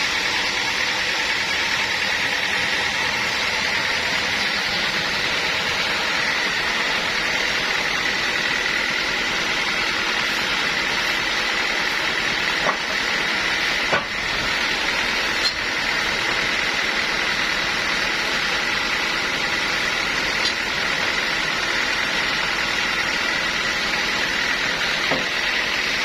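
Sawmill machinery running steadily: a hissing mechanical whine with a constant high tone. A few short sharp knocks come in the middle and near the end.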